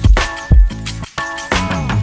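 Background music with a heavy kick drum about twice a second and synth notes, including a falling synth glide near the end.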